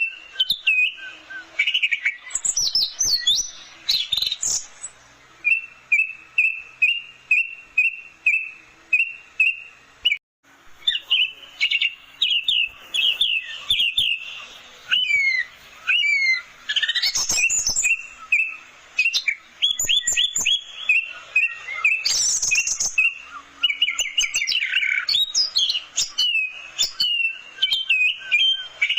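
Orange-headed thrush singing: a varied, continuous song of whistled notes and quick trills, including a run of repeated notes about two or three a second, with a brief pause about ten seconds in.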